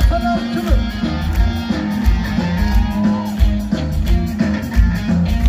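Live band playing an Amharic pop song through a concert PA, with a strong, steady bass-and-drum beat and guitar lines, heard from within the crowd.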